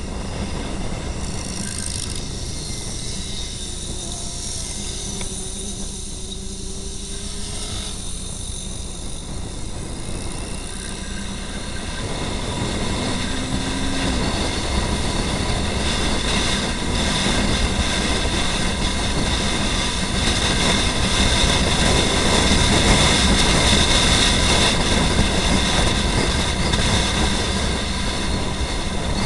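Motorcycle being ridden at road speed: engine running under a steady rush of wind on the microphone, growing louder about halfway through.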